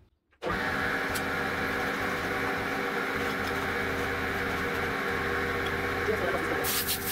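Air compressor starting abruptly about half a second in and running steadily with a hum. Near the end a compressed-air blow gun hisses in short blasts as it blows dirt off a chainsaw.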